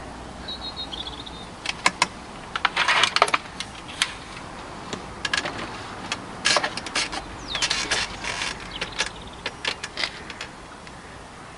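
A Remington Warhawk .22 break-barrel spring-piston air rifle being cocked and readied: a run of metallic clicks and clacks from the barrel hinge and cocking action, then knocks and rattles as the rifle is handled onto the rest. No shot is fired.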